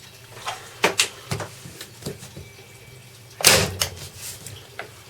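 Parkside PET 25 C2 electric stapler-nailer firing once on its highest setting: a single sharp shot about three and a half seconds in, driving a 32 mm nail flush into wood. A few lighter clicks and knocks come before it as the tool is handled and set against the wood.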